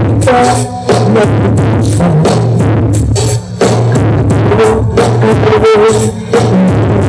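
Loud dance music with a heavy drum beat and a deep bass line.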